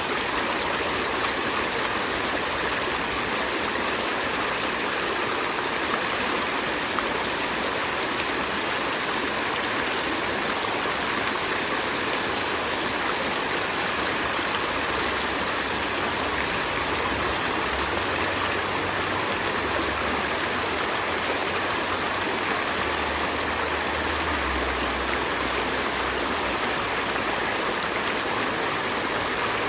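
A river stream flowing steadily: a continuous, even rush of water.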